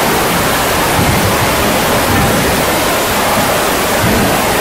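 Heavy storm rain hissing steadily on a tent canopy, with no let-up.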